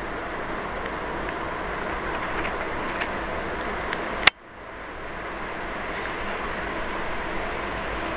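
Steady rushing background noise, with one sharp click a little over four seconds in, after which the noise drops out for a moment and swells back.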